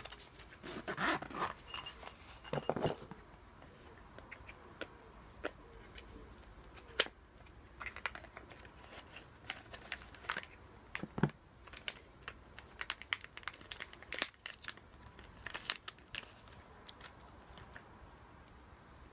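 Hands unpacking a small knife: a cardboard box is slid open and a clear plastic bag is rustled and crinkled. It comes as a string of short scraping, rustling and crinkling noises, loudest in the first three seconds.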